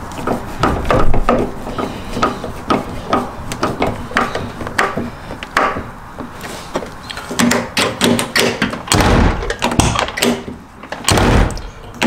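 Screwdriver working the mounting screw on the back of a VW Mk2 door handle, with many small clicks, taps and rattles of metal on the door shell. Near the end, two heavier thuds as the door is shut and the handle is pulled.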